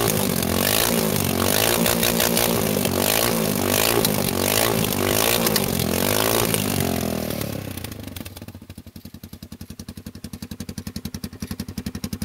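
MZ 660 Baghira's single-cylinder engine revved repeatedly through a custom gatling-gun style multi-barrel exhaust, its revs rising and falling about once a second. About seven seconds in it drops back to idle, with evenly spaced exhaust pulses.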